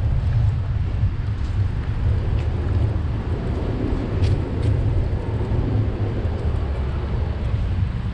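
Wind buffeting the microphone of a camera riding on a moving bicycle: a low, fluctuating rumble with road and traffic noise underneath, and a few faint clicks.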